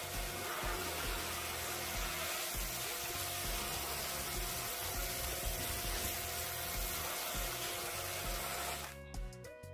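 Background music with a steady beat over the steady hiss of a pressure washer spraying water onto brick and deck boards. Both cut out briefly near the end.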